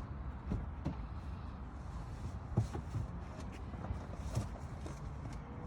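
Steady low outdoor rumble with a few light knocks and clicks, about four spread through the few seconds, the loudest a little past halfway.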